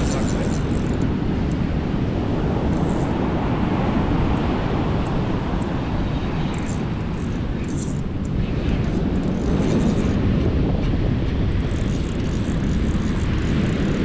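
Steady wind rumble on the microphone mixed with breaking surf.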